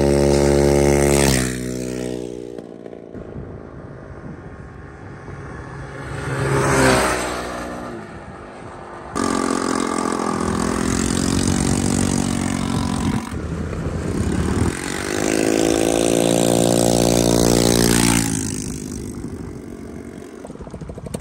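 150cc scooter engines running at speed: a steady engine drone, one scooter passing close about seven seconds in, and the engine sound breaking off and coming back abruptly about one and nine seconds in.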